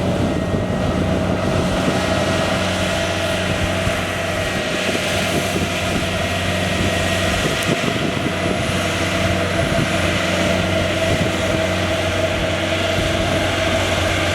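Rice harvesting machine running steadily: an even engine drone with a constant whirring mechanical hum over it.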